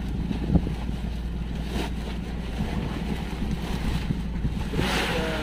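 Small fishing boat's engine running with a steady low drone, wind buffeting the microphone and water noise over it; a louder rushing sound comes in near the end.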